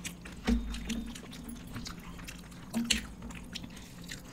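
People eating: wet chewing and mouth sounds, with a few short sharp clicks scattered through.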